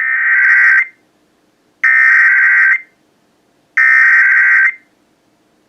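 Emergency Alert System SAME header: three bursts of digital data tones, each about a second long and about two seconds apart, that mark the start of an alert, here a National Weather Service severe thunderstorm warning.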